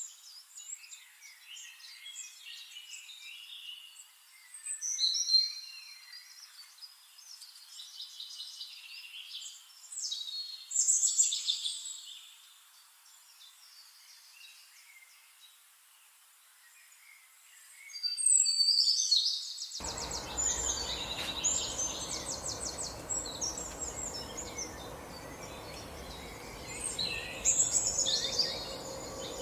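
Outdoor birdsong: high chirps and trills that come in several louder bursts a few seconds apart, including a fast pulsing trill about two-thirds of the way through. At about the same point a steady background rush comes in underneath.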